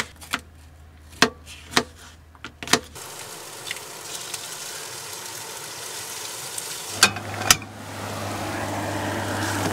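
Kitchen knife chopping bell peppers on a plastic cutting board, a few sharp cuts in the first three seconds. Then scrambled eggs sizzling in a nonstick frying pan on a gas stove as they are stirred, the sizzle growing slowly louder, with two sharp knocks about seven seconds in.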